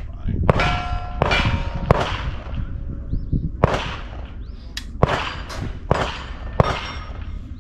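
A string of about eight sharp gunshots over some seven seconds, irregularly spaced, with steel targets ringing after several of them.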